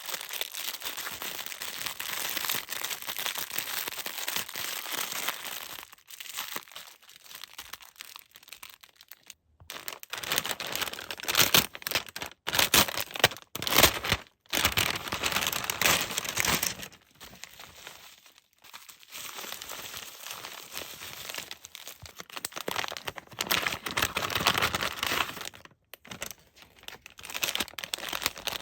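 Packaging crinkling and tearing as items are unwrapped by hand, in irregular rustling spells with a few abrupt cuts to silence.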